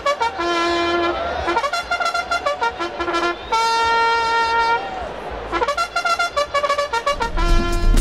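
Solo trumpet playing a racetrack bugle call: runs of short, crisp notes, with one long held note in the middle. Near the end a bass-heavy music track with a beat comes in.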